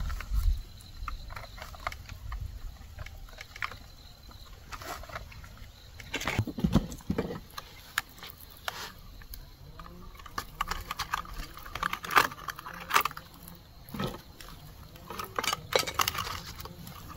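Light clicking and rattling of split bamboo sticks and grilled corn cobs being handled and fitted together, with scattered irregular knocks.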